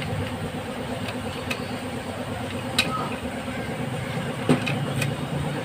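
Steady low engine and traffic rumble, with a few sharp clicks scattered through it, the loudest a little past halfway.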